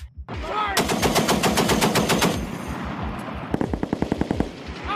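Automatic machine-gun fire in two bursts at about a dozen shots a second. The first starts under a second in and lasts about a second and a half; the second comes about three and a half seconds in and lasts about a second. A steady low thumping pulse runs underneath.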